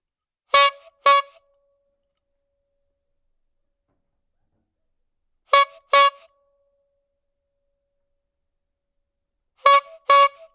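Clown's rubber-bulb horn honked twice in quick succession, three times over: three pairs of short, steady-pitched honks about four to five seconds apart.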